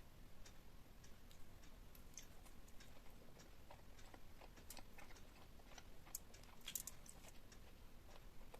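Faint, close-miked eating sounds: scattered small mouth clicks and crackles of chewing, with a brief louder cluster about two-thirds of the way in.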